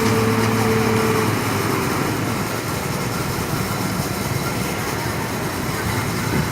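Heavy road-paving equipment engines running steadily; a pitched hum drops away about a second in, leaving a rougher, even engine noise.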